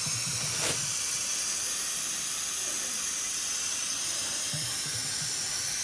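Steady, even hiss, with a brief click just under a second in.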